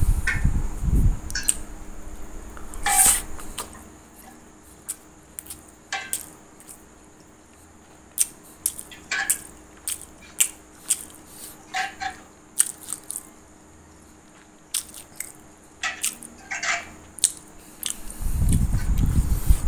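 Close-up open-mouthed chewing of a mouthful of rice and fish: scattered wet clicks and smacks. A low handling rumble about the first second and again near the end, where the phone is moved.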